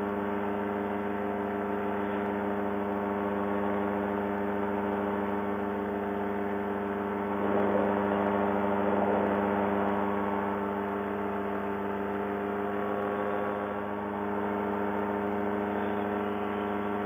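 Fresh Breeze Monster paramotor's two-stroke engine and propeller running steadily in flight, a constant drone that swells briefly about halfway through. The carburettor is fitted with a leaner 155 main jet, swapped in from a 160 because the engine seemed to run rich.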